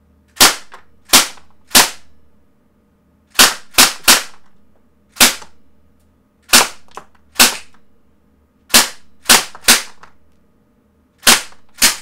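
KWC Mini UZI CO2 blowback BB gun firing single sharp cracks, about fourteen in all, spaced unevenly with some in quick pairs and threes. A fainter click follows some of the shots.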